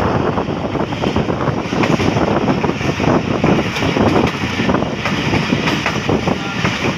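Passenger train running along the track, heard from an open carriage window: a steady, dense clatter of wheels on the rails.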